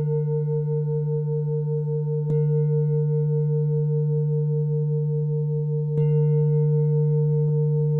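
Singing bowls ringing: a low steady hum with a wavering, pulsing tone above it. A bowl is struck again about two seconds in and once more near six seconds, each strike adding a brighter, higher ring.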